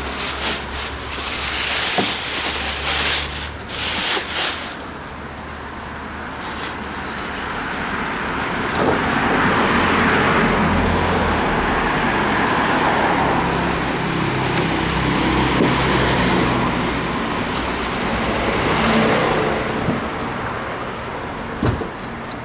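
A motor vehicle engine running amid traffic noise, swelling about eight seconds in and easing off near the end. Bursts of hiss come through in the first few seconds.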